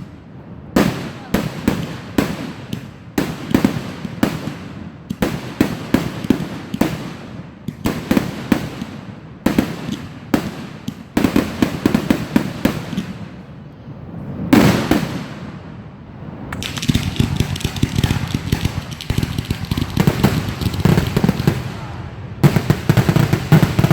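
Fireworks going off in rapid succession: a constant string of sharp bangs and crackles. A heavier blast comes about 14 seconds in, and a dense crackling barrage runs through the last several seconds.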